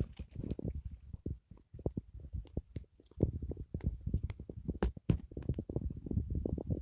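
Dry twigs and stalks crunching and crackling as they are handled and broken, in dense irregular snaps over a low rumble.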